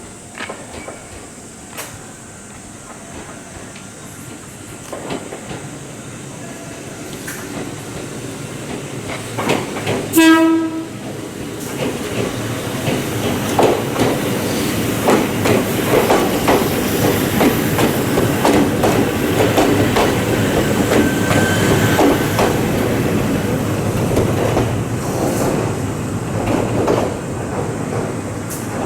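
Ohmi Railway electric train approaching and giving one short horn blast about ten seconds in. It then passes close by, rumbling, its wheels clacking over the rail joints and the turnout.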